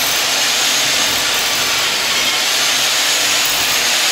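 Electric drill boring a hole through a wall for power cables, running steadily at an even speed.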